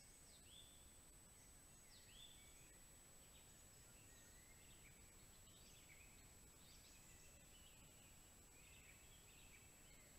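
Faint birdsong in the forest: short whistled and chirping phrases repeated every second or so, over a steady thin high whine and low hiss.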